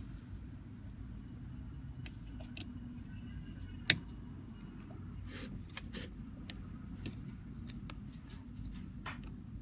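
Small precision tools being handled: scattered light clicks, with one sharp click about four seconds in, over a steady low hum.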